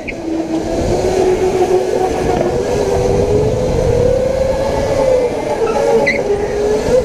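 Electric go-kart's motor whining at full throttle over tyre and track rumble. Its pitch starts low, climbs steadily as the kart gathers speed, dips briefly about five seconds in, then holds.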